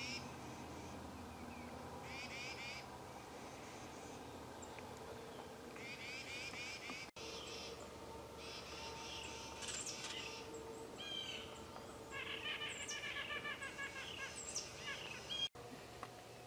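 Small woodland songbirds calling: short chattering bursts repeated every couple of seconds, then a quick series of nasal notes near the end. The sound drops out for an instant twice.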